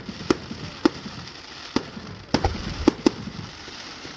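Fireworks going off: about six sharp bangs at irregular intervals, two of them close together near the end, over a steady background hiss.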